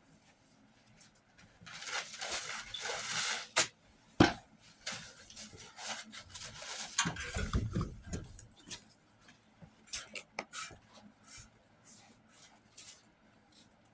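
Rubbing and wiping on a sheet-metal body panel as it is cleaned down for primer, with a few sharp knocks and clicks and a string of short scrapes near the end.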